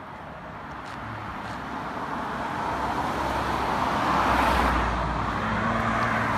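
Road traffic: a car approaching on the road, its tyre and engine noise growing steadily louder, peaking about four seconds in and staying close near the end.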